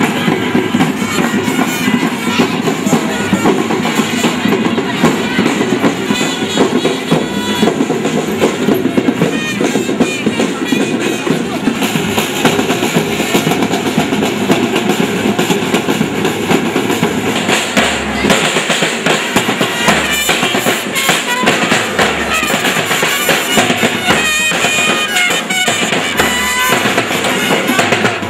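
Band music with drums playing continuously, with steady drum strokes and held melodic notes over them.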